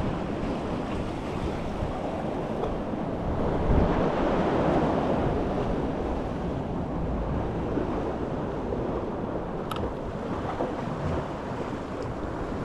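Sea swell surging and washing against rocks, with wind on the microphone; the rush of water builds up about four seconds in and eases off.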